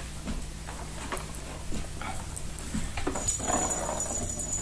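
Four-week-old Newfoundland puppies moving about and playing on carpet, with scattered small scratches and knocks, and a soft puppy whimper about three seconds in.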